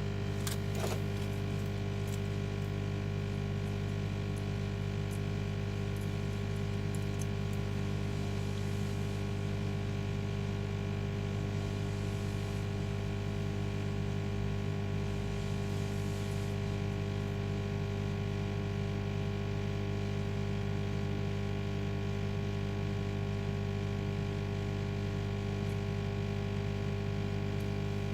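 Steady electrical hum made of several even low tones, unchanging throughout, with a couple of faint clicks about half a second in.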